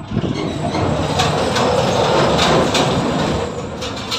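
A truck crossing a road bridge: a loud rumble with clattering knocks that builds about a second in, is loudest midway and fades near the end. The noise is loud enough to drown out speech.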